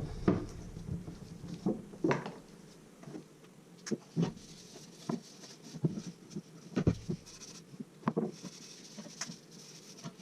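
Irregular light knocks and taps, with a brief rubbing hiss near the end: a freshly oiled turned walnut piece and tools being handled.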